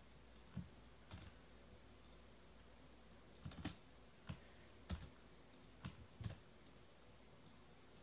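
Faint, irregular clicks and light knocks, about nine of them, some in quick pairs, over a low steady hum.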